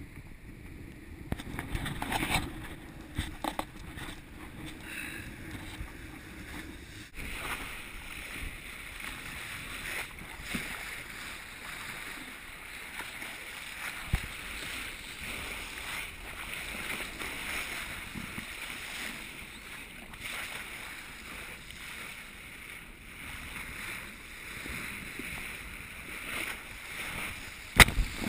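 A sailing yacht's bow cutting through the sea: a steady rush of water along the hull, with a sharp splash of spray near the end.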